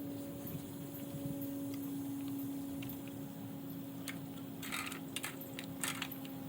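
A few light clicks and knocks of composite garden-bed boards and plastic brackets being handled, bunched about two thirds of the way in, over a steady low hum.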